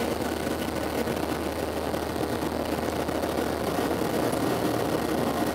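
Boeing 737-700's CFM56-7 jet engines heard inside the passenger cabin during the climb after takeoff: a steady rush of engine and air noise with a low hum underneath.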